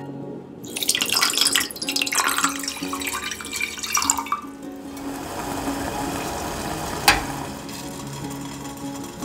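A cup of water poured in a stream into a stainless steel saucepan of sugar, splashing for about four seconds, then a quieter hiss with one sharp tap about seven seconds in. Soft guitar music plays underneath.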